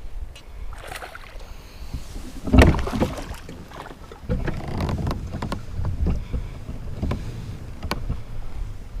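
Knocks and rustling on a kayak while a hooked bass fights close by, with one loud thump about two and a half seconds in and a run of irregular knocks after it.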